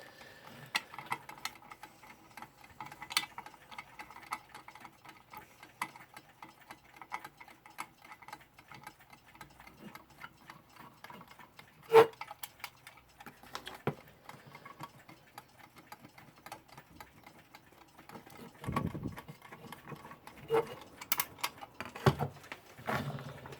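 Vintage Weltime mechanical alarm clock ticking rapidly and steadily, its movement running with the regulator set to halfway. There is a single sharp knock about halfway through, and handling clunks near the end.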